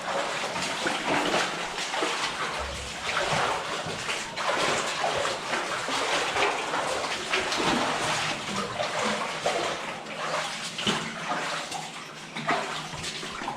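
Feet wading through a shallow cave stream, water sloshing and splashing irregularly with each step over a steady rush of water.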